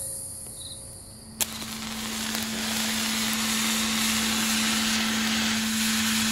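Soundtrack noise: a sharp click about a second and a half in, then a loud hiss that swells in and holds over a steady low hum.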